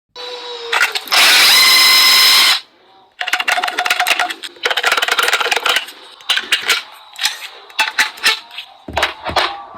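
A power tool whirs loudly for about a second and a half, then stops. After that come many sharp clicks and knocks of hands-on work.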